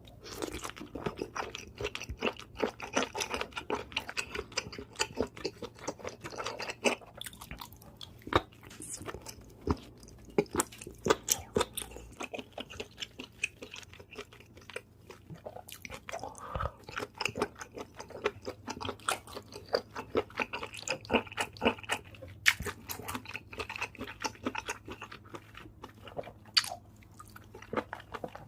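Close-miked chewing of seafood: a dense, irregular run of wet smacks, crunches and bites, with a few sharper, louder crunches along the way.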